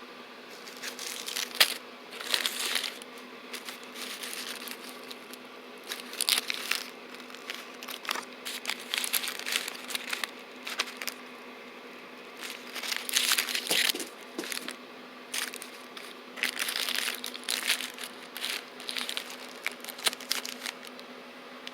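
Packs and bricks of Black Cat firecrackers being handled and shifted, their paper and cellophane wrappings crinkling and rustling in irregular bursts, with a few sharp clicks as packs are set down.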